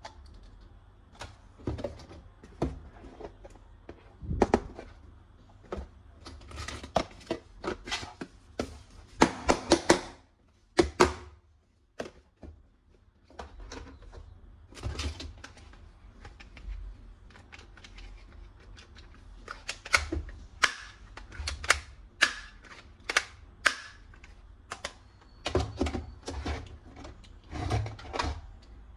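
Plastic toy guns being handled: irregular sharp clicks and knocks of plastic parts, with a dense flurry about nine to eleven seconds in and a brief pause around twelve seconds.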